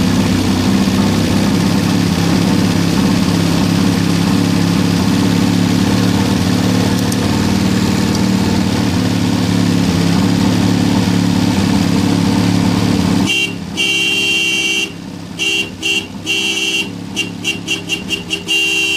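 1974 Toyota Corolla's four-cylinder engine running steadily on its first run in about 25 years, then cutting out suddenly about two-thirds of the way through. A car horn then sounds in a run of short toots, coming quicker near the end.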